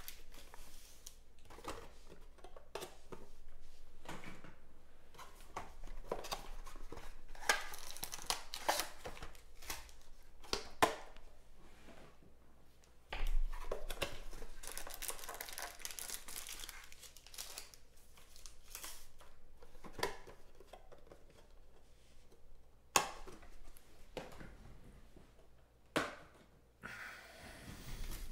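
Foil wrappers of trading-card packs crinkling and tearing as packs are handled and opened, with a running patter of small clicks and rustles from cards and the cardboard box, and a few sharp knocks.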